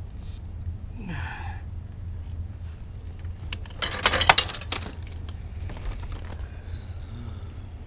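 Loose metal parts clinking and jangling in a quick run of sharp clicks for about a second, roughly four seconds in, during work on a motorcycle's drive chain. A steady low hum runs underneath.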